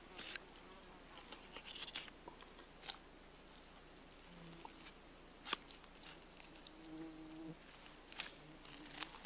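Faint, scattered crackles and ticks of elk tenderloin meat and membrane being pulled and peeled by hand from the underside of the backbone.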